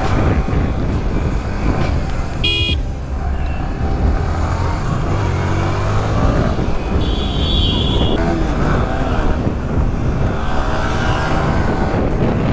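Motorcycle engine running at speed with wind rumble on the microphone, its pitch rising and falling as the rider works the throttle. A vehicle horn toots briefly about two and a half seconds in, and a higher horn tone sounds for about a second around seven seconds.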